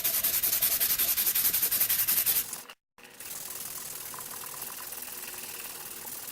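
Rapid back-and-forth hand sanding of a metal heatsink base with 400-grit sandpaper: fast, even rasping strokes, about seven a second, that cut off suddenly about two and a half seconds in, followed by a fainter steady hiss.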